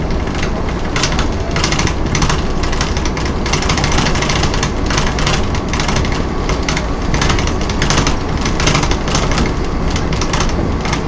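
Inside a Volvo B10M single-deck bus under way: the engine and driveline run steadily under a dense road rumble, with frequent short rattles and knocks from the bodywork.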